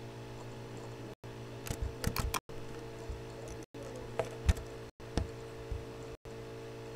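Computer mouse clicking: a handful of sharp, irregular clicks over a steady electrical hum. The hum cuts out briefly about every second and a quarter.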